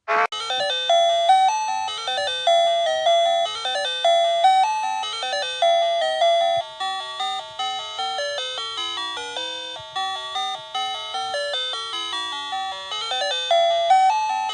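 Electronic bell-like chime melody: quick struck notes that ring and fade, a short tune repeating over a low note pulsing steadily underneath. It is played as an emergency alert tone.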